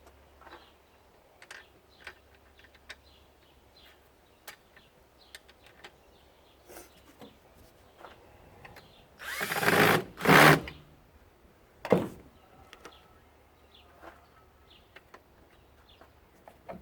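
Power drill/driver spinning in two short bursts near the middle, working the screws of a plastic weed-whacker housing. Light clicks and taps of the plastic parts being handled come before it, and a single sharp click about a second and a half after.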